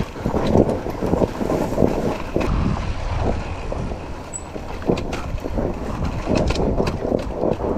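Enduro dirt bike engine running as the bike is ridden over rough ground, with irregular knocks and rattles throughout.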